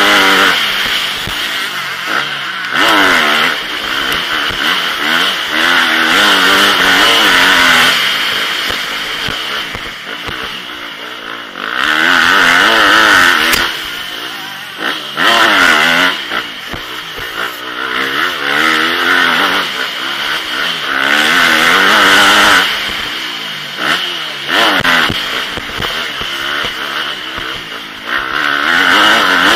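Motocross bike engine, heard up close from the rider's helmet, revving hard and dropping back again and again as the rider opens the throttle, shifts and backs off through the track's jumps and corners, with several loud full-throttle pulls.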